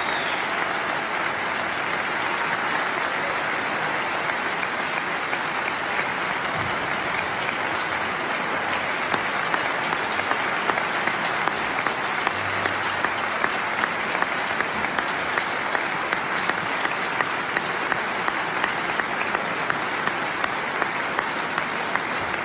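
Audience applauding steadily, with sharper single claps standing out at about three a second from around nine seconds in.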